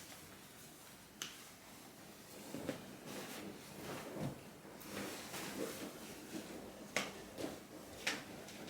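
Quiet household handling sounds: a few sharp clicks or knocks, one a little over a second in and two near the end, with soft irregular scuffing sounds between them.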